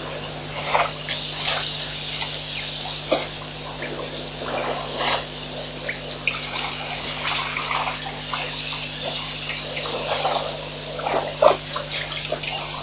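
An African elephant drinking at a waterhole: water splashing and dribbling in irregular short bursts as it draws water up its trunk and squirts it into its mouth.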